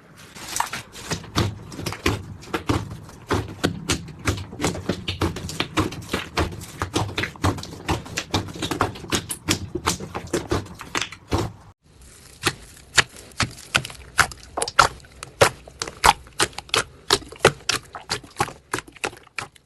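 Slime being squeezed and pressed by hand, giving rapid, dense clicking and popping. After a brief break near the middle, the pops come sharper and more spaced out.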